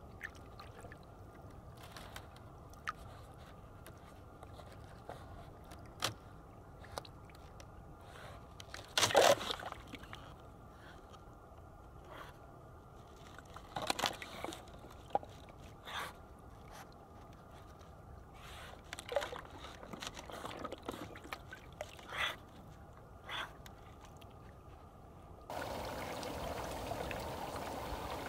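Eurasian otter moving in shallow water: scattered small splashes, drips and sloshes, the loudest about nine seconds in. Near the end the sound changes to a steadier rush of water.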